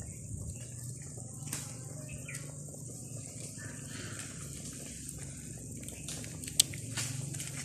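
Chicken pieces boiling in turmeric water in a pot over a wood fire: a steady low rumble of the boil under a steady hiss, with a few sharp crackles from the burning sticks, the loudest one late on.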